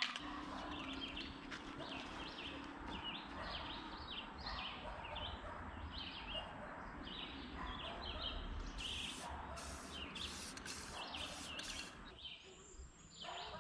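Small birds chirping over and over in the background. Near the end come about six short hisses, a spray paint can sprayed in quick bursts over a leaf branch held against the boat's aluminium side.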